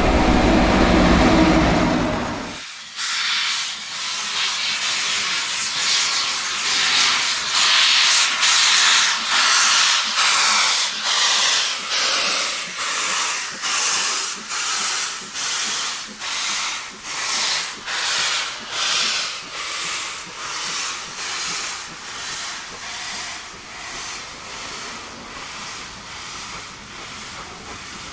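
A train horn sounds and stops about two and a half seconds in. Then a steam locomotive's exhaust chuffs in a steady rhythm, each beat a burst of hiss, gradually fading.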